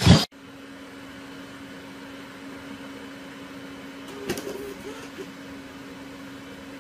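A loud clatter right at the start as a wooden cabinet door is knocked, then a steady low electrical hum over faint hiss. About four seconds in come a soft click and a few short, faint rising chirps.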